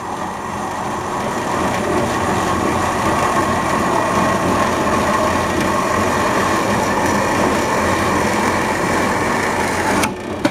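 A 1 hp Wellsaw Model 8 horizontal band saw running, its blade cutting down through a wooden block with a steady noise. The sound drops away suddenly near the end.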